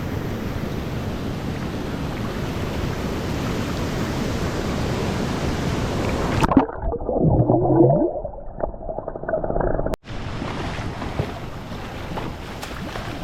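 Waterfall water rushing steadily. A little past six seconds in the sound turns muffled and dull, with a few low wavering tones. It breaks off abruptly about ten seconds in, then the water rush returns, a bit quieter.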